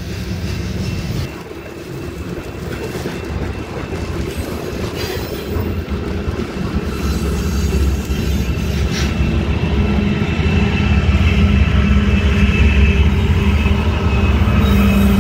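A freight train rolling past at close range: steady rumble and clatter of the cars' wheels on the rails, growing louder over the last several seconds as a BNSF diesel locomotive comes by.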